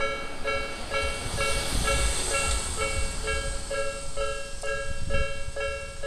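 Japanese railway level-crossing alarm of the Tobu type B sound, an electronic two-tone ding repeating about twice a second. A car passes in the middle with a low rumble and tyre hiss.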